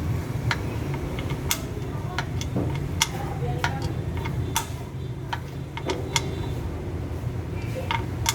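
Irregular sharp clicks and light taps, about two a second, over a low steady hum, with faint voices underneath.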